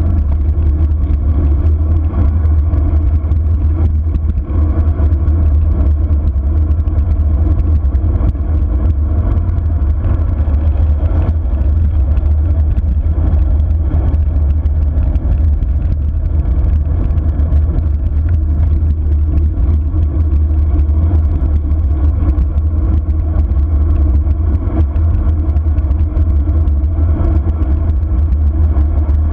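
Wind buffeting an action camera's microphone at descending speed: a loud, steady low rumble with road noise underneath.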